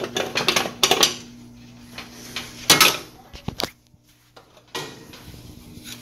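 Clicks, knocks and light metallic clatter from handling an electric range's control knob, sheet-metal backguard and infinite switch as the switch is taken out. A cluster of quick clicks comes in the first second, a louder clatter just before the middle, and another just after it.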